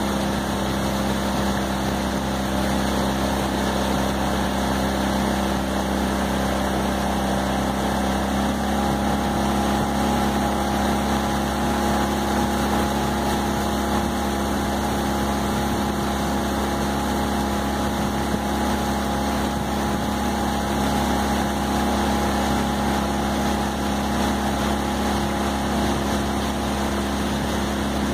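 Small outboard motor running steadily at a constant cruising speed, a continuous hum with a noisy rush of air and water over it.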